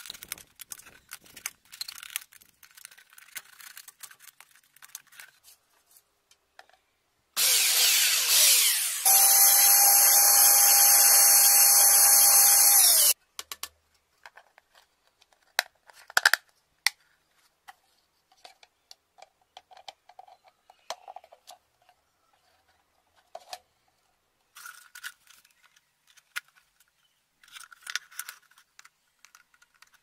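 A utility knife scrapes and crackles through a thin plastic drink bottle. Then a power drill runs for about six seconds, its note settling to a steady whine partway through, as it bores a hole in a plastic lid. Scattered clicks and knocks of plastic being handled follow.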